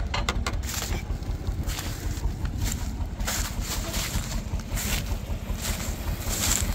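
Tractor engine running steadily at a low rumble, with wind gusting on the microphone.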